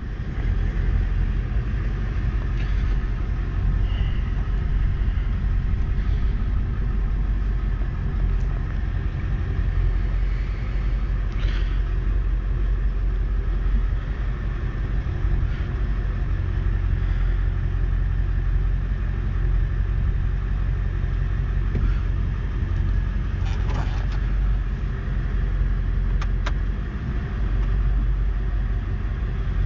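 Steady low rumble of a car's engine and road noise heard from inside the cabin, with a few faint clicks in the second half.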